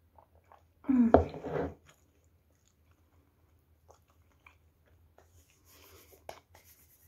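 A person drinking from a mug and eating, with a short loud voiced mouth sound about a second in, then faint chewing and mouth noises with a few light clicks.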